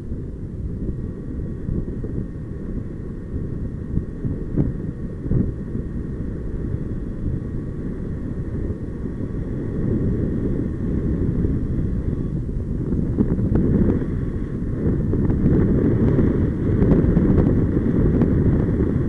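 Wind buffeting the microphone of a riser-mounted camera during paraglider flight: a steady low rumble that grows louder in the second half.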